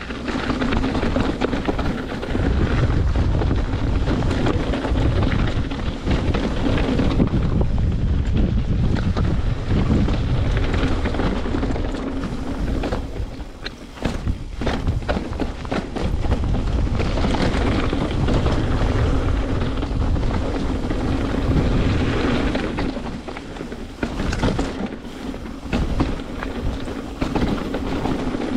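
Wind rushing over the microphone and the tyres of a Trek Remedy full-suspension mountain bike rolling fast down a dirt downhill trail, a steady low rumble and hum. Sharp knocks and rattles from the bike over rough ground come in clusters about halfway through and again near the end.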